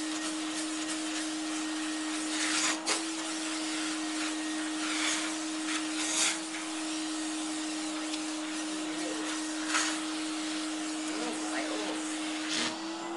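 Vacuum cleaner running with a steady hum, its nozzle worked over a dog's coat, with a few brief louder rushes of air.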